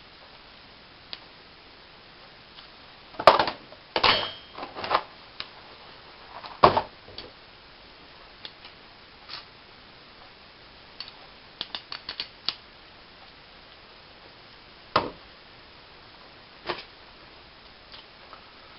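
Irregular clicks and knocks from handling heavy welding cable, a cable lug and a hand crimping tool. The loudest knocks come about three to four seconds in and again near seven seconds, with a quick run of light clicks around twelve seconds.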